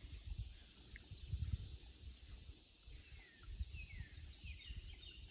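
Small birds chirping faintly, with a run of short downward-slurred notes in the second half, over an irregular low rumble.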